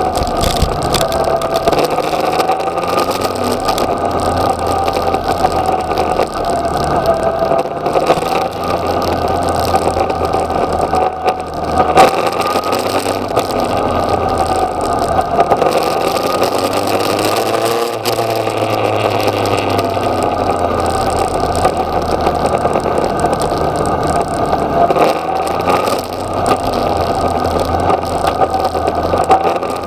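Yamaha XJ6's inline-four engine heard from the bike at speed, its revs rising and falling with the throttle and gear changes, a short drop and climb about two-thirds of the way through. Wind rushes on the microphone throughout, with a sharp thump near the middle.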